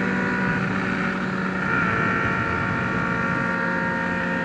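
Sport-bike inline-four engines running steadily at cruising speed: a 2003 Honda CBR600RR with a second sport bike riding alongside.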